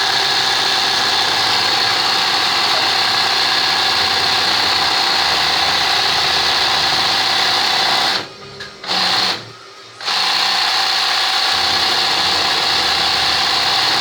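Sewing machine running steadily while doing freehand (manual) embroidery, stopping twice briefly a little past the middle before running on.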